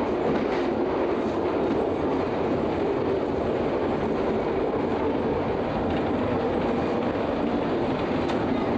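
Steady running noise of a moving passenger train heard from inside the carriage, its wheels running on the rails.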